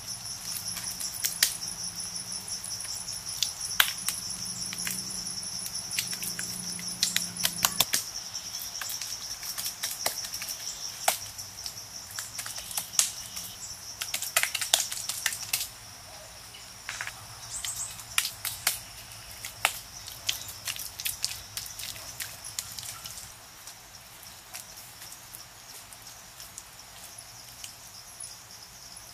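Steady high-pitched drone of forest insects, with scattered sharp taps and slaps of wet mud plaster being pressed and smoothed by hand.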